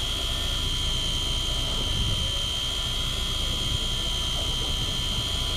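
Electric fishing reel winding in line under load, a steady high motor whine, over a low steady rumble.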